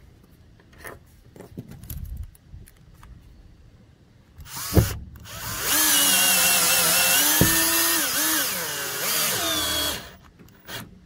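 Cordless drill running to tighten an eye bolt down into the boat floor. Its motor whine wavers and dips in pitch under load for about four seconds, then stops abruptly. Light clicks and a sharp knock come before it as the drill is set on the bolt.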